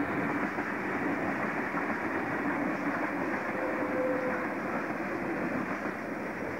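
Stainless steel double-deck suburban electric train passing close by: a steady noise of wheels running on the rails.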